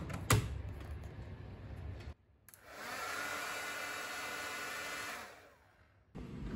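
Two sharp knocks as a handheld Louvredo hair dryer is picked up. It is then switched on and runs steadily with a fan whine for about two and a half seconds before winding down and fading out.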